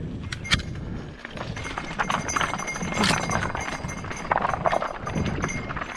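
Mountain bike rolling down a wet trail of loose rocks: a dense, irregular run of knocks and clatters from the tyres and bike striking the stones.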